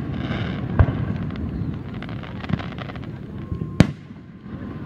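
Aerial firework shells bursting: a sharp bang about a second in and a louder one near the end, with fainter pops between, over a steady low rumble.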